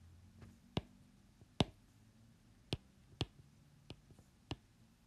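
Pen tip tapping and clicking against paper during handwriting: about six sharp, irregular clicks with a few fainter ones between, over a faint low hum.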